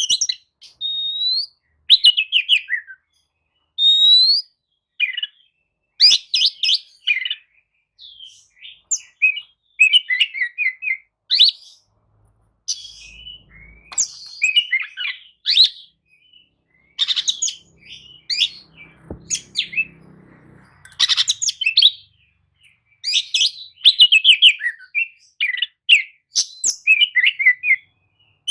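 Oriental magpie-robin (kacer) singing a varied song in short phrases of rapid chirps, trills and clear rising whistles, separated by brief pauses.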